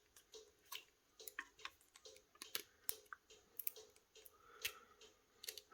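Faint, irregular small clicks and taps of hand-held tools and plastic phone parts being handled while the display's flex cable is connected to a smartphone.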